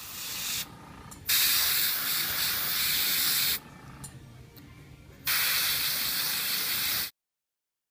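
Airbrush spraying paint onto a sculpted acrylic piece: a steady hiss in bursts, a short one at the start, then two long ones of about two seconds each.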